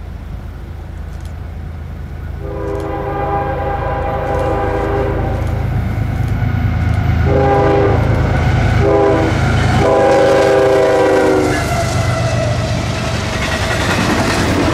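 CSX freight locomotive's chord air horn sounding long, long, short, long, the grade-crossing signal, over the growing rumble of the approaching diesel train.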